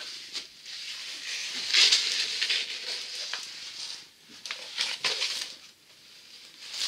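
Rustling and crinkling of a diamond-painting canvas as it is unfolded and lifted up, with louder swells about two seconds in, around five seconds and at the end.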